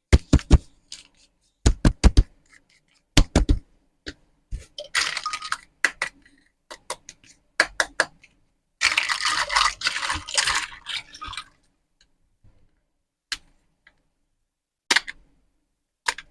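Small plastic toys being handled: clusters of sharp clicks and taps, with two longer stretches of scraping and rustling in the middle, and a few single clicks near the end.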